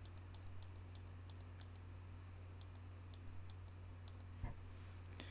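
Faint computer mouse clicks, a dozen or so at irregular intervals, over a low steady hum, with a single soft thump about four and a half seconds in.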